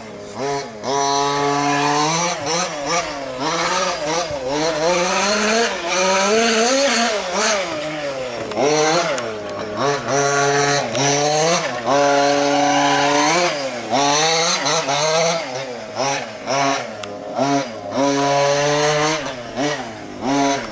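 Two-stroke petrol engine of a large-scale radio-controlled off-road buggy, revving up and down over and over as it is driven around a dirt track: a fresh rise and fall in pitch every second or so, with a brief steady stretch near the end.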